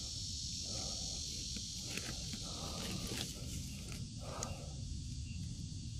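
Faint rustles and light clicks of a collapsible bamboo-hooped net fish trap being stretched open by hand, over a steady high insect-like hiss and a low rumble.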